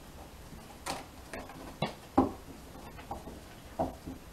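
Oracle cards being handled and drawn from the deck: about five sharp, irregularly spaced card taps and clicks against the table.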